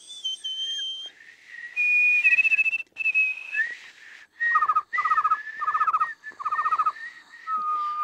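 Whistled imitation of a cricket: a whistle made to flutter by a relaxed, gargle-like vibration of the back of the tongue against the soft palate, breaking the tone into rapid pulses. From about four and a half seconds in come four short pulsed chirps, each about half a second long, under a steadier higher whistle.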